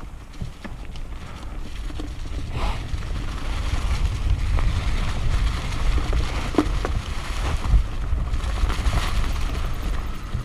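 Mountain bike rolling down a leaf-strewn dirt trail, heard on the rider's action camera: a steady low rumble of tyres and wind on the microphone, with scattered clicks and rattles from the bike.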